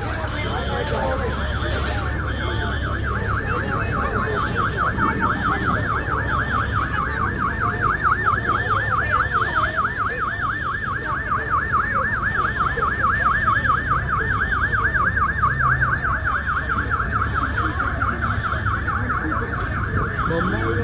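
Fire alarm sounding a continuous fast warbling tone that rises and falls several times a second, over a low steady hum.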